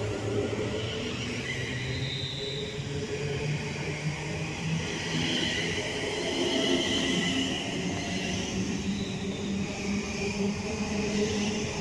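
Class 350 Desiro electric multiple unit pulling away close by, its traction motors whining in several tones that climb slowly in pitch as it gathers speed, over a steady rumble of wheels on rail.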